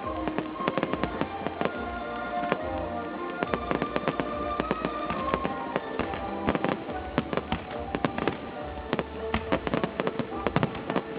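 Fireworks display going off in quick succession: many sharp bangs and crackles every second, heard over music with long held notes.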